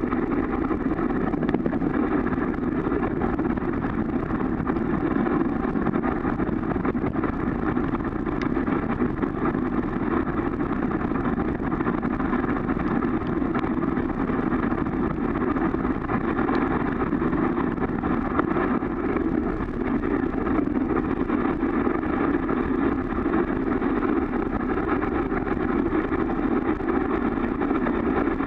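Steady, unchanging muffled rumble and hiss picked up through the sealed waterproof housing of a sled-mounted action camera, with no clear dog or voice sounds standing out.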